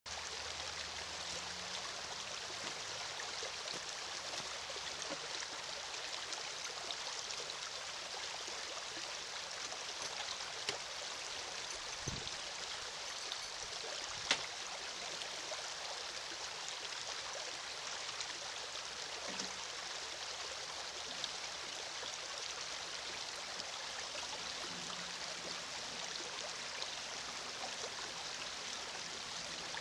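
Small stream rushing steadily over its bed, with a few faint knocks and one sharper click about halfway through.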